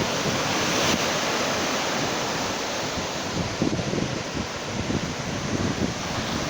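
Indian Ocean waves washing in over a coral reef shoreline in a steady surf wash, with wind gusting against the microphone.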